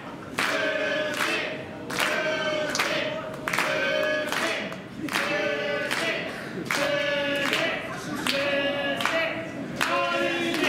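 Wrestling crowd chanting in unison to a steady beat of hand claps, about three claps every two seconds.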